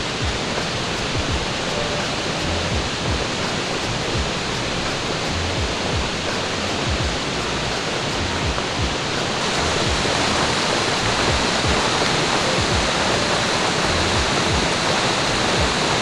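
Waterfall rushing steadily, an even noise of falling water, a little louder from about halfway on.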